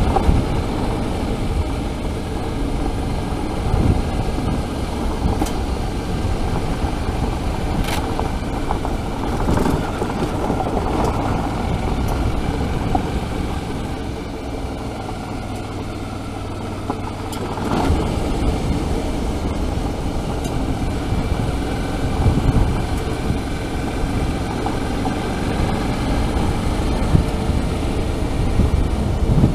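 Suzuki V-Strom 650's V-twin engine running under way on a gravel road, mixed with tyre noise on loose stones. A few sharp ticks are heard, and it eases off briefly a little after the middle.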